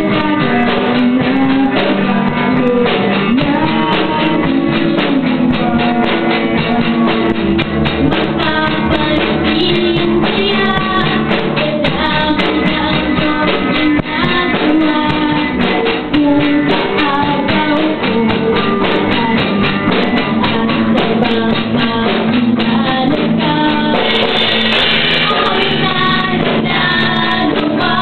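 Live band playing a pop-rock song: a woman singing into a microphone over a drum kit and electric guitar, loud and without a break.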